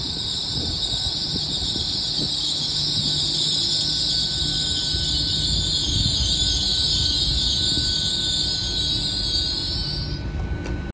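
GWR Hitachi Class 800-series bi-mode intercity train passing along the platform on its underfloor diesel engines: a steady low rumble of engines and wheels on the rails, under a steady high hiss that fades near the end.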